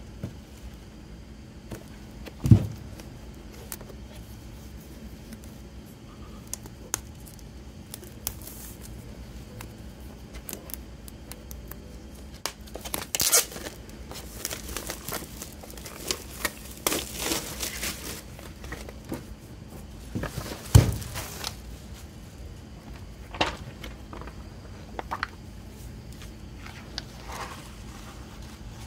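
Hands unwrapping a shrink-wrapped box set: the plastic film crinkling and tearing in clusters of crisp crackles around the middle, with two dull knocks as the box is handled, one early and one past the middle, the loudest sounds here. Lighter paper and handling rustles follow near the end.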